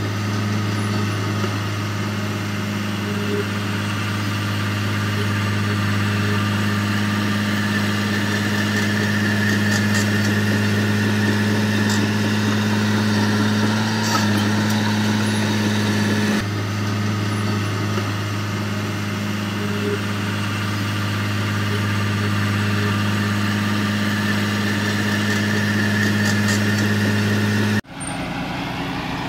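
Diesel engine of heavy earthmoving equipment running at a steady speed, a constant low hum over mechanical clatter. Near the end the sound cuts off suddenly and gives way to a quieter engine sound.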